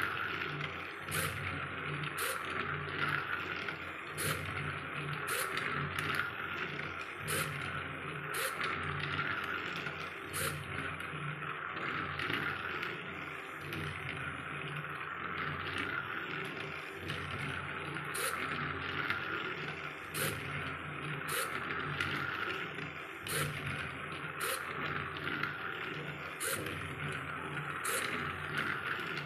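Battery-powered plastic toy train running around its plastic track: a steady whirr from its motor and gears, with a sharp click about once a second.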